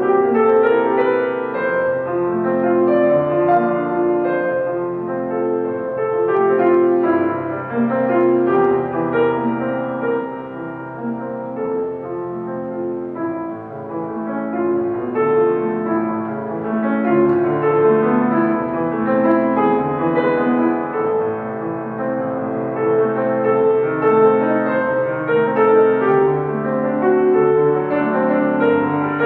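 Solo piano playing a classical piece: a continuous flow of notes and held chords.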